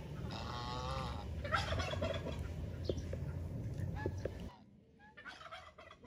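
Domestic fowl calling repeatedly, the first call long and wavering, over a steady rushing background that cuts off suddenly about four and a half seconds in.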